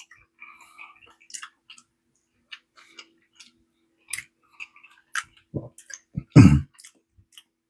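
Mouth sounds of a person chewing food: scattered wet clicks and smacks, with one louder short low sound about six and a half seconds in.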